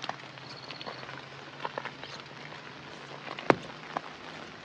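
Rain falling steadily, an even hiss with scattered sharp drips striking nearby surfaces, and one much louder sharp tap about three and a half seconds in.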